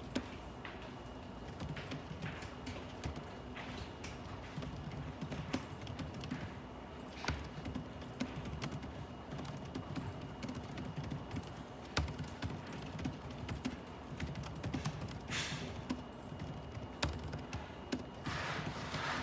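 Computer keyboard typing in irregular spurts of key clicks over a low, steady office hum, with a short rustle about fifteen seconds in.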